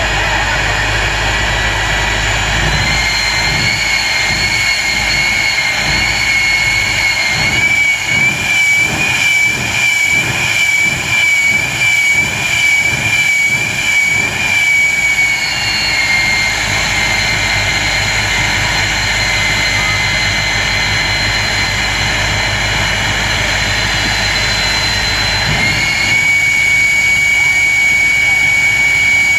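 Jet engine of the Motz jet semi truck running with a steady high whine. Between about 8 and 15 seconds in, it pulses in a rapid, even series of afterburner flame bursts, nearly two a second, while the whine wavers. Near the end the whine steps up in pitch and gets louder.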